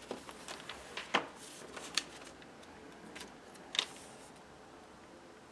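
Paper and sticker handling: a sticker pulled from its sheet and pressed onto a notebook page, a few short crinkles and light ticks in the first four seconds, then quiet handling.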